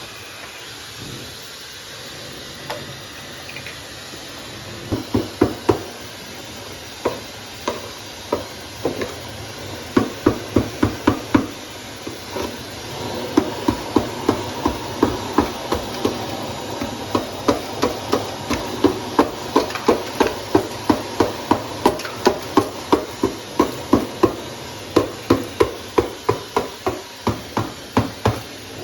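Ice being chipped off inside a refrigerator's freezer compartment: quick runs of sharp knocks, about two to three a second, over the steady hiss of a hair dryer blowing to melt the ice.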